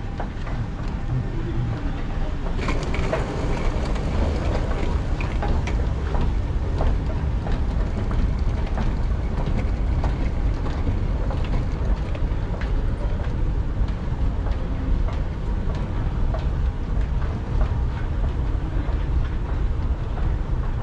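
Steady low rolling rumble with many scattered sharp clicks, the running noise of an airport moving walkway and rolling luggage.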